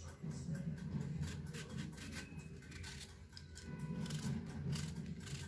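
Knife slicing a peeled cucumber held in the hand, an irregular run of short, crisp cuts.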